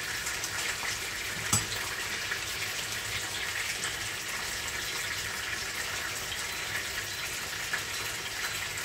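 Okra sauce sizzling in a pot on the cooktop, a steady hiss with faint crackling. A single knock comes about a second and a half in.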